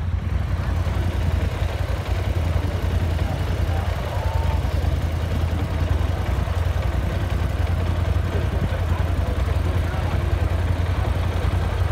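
A vehicle engine running steadily with a constant low hum and a wash of noise over it.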